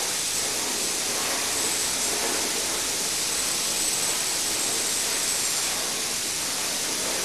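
Compressed-air paint spray gun, run at 45 to 50 PSI, spraying a water-based metallic coating: a steady, even hiss, with a faint high whistle that comes and goes.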